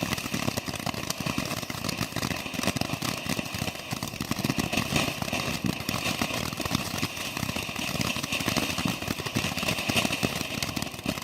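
Ground fountain firework burning with a continuous fast crackle and hiss, throwing a flame like a blowtorch.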